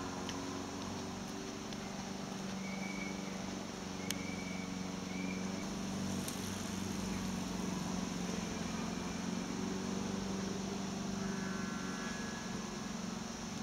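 Steady outdoor background hum and hiss with a low drone, and a few faint short high chirps a few seconds in.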